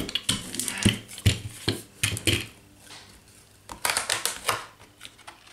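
Hands rubbing and handling a sheet of paper laid over a stencil on a gel printing plate, with light knocks and clatters as the brayer is set down on the table. After a short lull, the paper rustles about four seconds in as its edge is taken up to lift the print.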